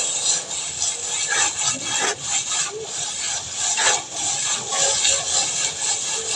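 Rough, irregular scraping and rubbing strokes, as of a hand tool being worked over a surface.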